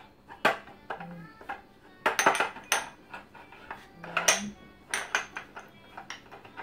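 Glass spice jars being set back one by one onto a spice shelf: a string of sharp clinks and knocks, several in quick succession about two seconds in and more around four to five seconds.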